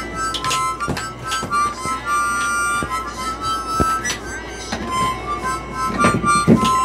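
A small hand-held harmonica playing short, high notes, often two at a time, changing about every half second, with breathy puffs between phrases.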